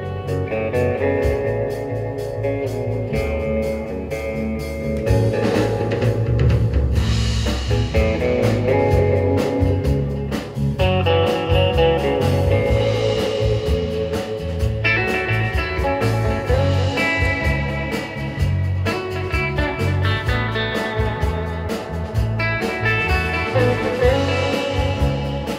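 A live band playing rautalanka-style guitar music, with guitars, electric bass guitar and a drum kit keeping a steady beat.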